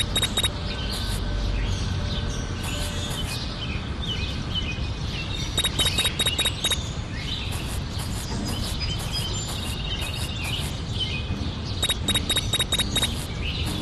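Birds chirping over a steady low rumble. A short run of rapid high ticks with a bright chiming tone comes back about every six seconds, the even repeat of a looped ambience track.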